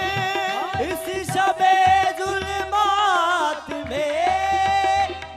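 Qawwali music: harmoniums and a singing voice carry a gliding, ornamented melody over a held drone, with sharp percussive strokes keeping the beat.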